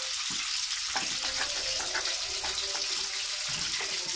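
Tofu frying in hot oil in a wok: a steady sizzling hiss with scattered crackles and pops.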